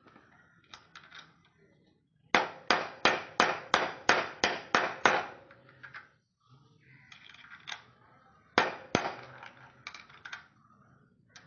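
A run of about nine sharp metal knocks, about three a second, like hammer blows on a bicycle part; after a pause, another cluster of knocks follows.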